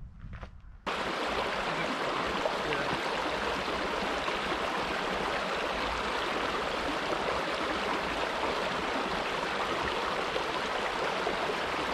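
A few footsteps, then about a second in a cut to the steady rush of a stream of running water.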